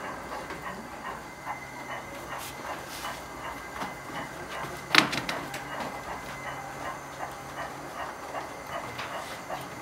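Gauge 1 model steam locomotive with its passenger train rolling along the track, with irregular light clicks from the wheels and track and a low hum. A single sharp click about halfway through is the loudest sound.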